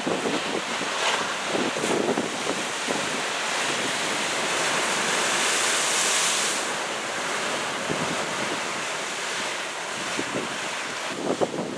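Ocean surf from typhoon swell, a steady wash of breaking waves that swells to a louder crash about five to six seconds in, with wind buffeting the microphone.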